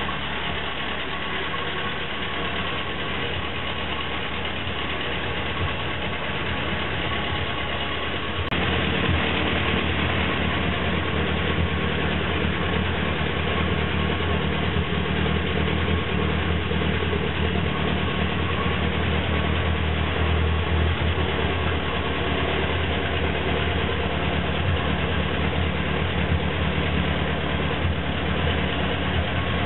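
A 1949 Ferguson TED20 tractor's four-cylinder engine idling steadily, freshly tuned. About a third of the way in there is a click, and the engine sound steps up and stays louder.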